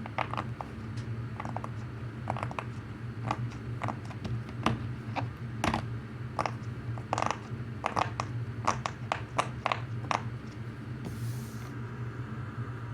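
Bubbles of a purple silicone pop-it fidget toy being pressed one after another, giving soft, irregular pops and clicks a couple of times a second; this one is quieter than most. A steady low hum runs underneath.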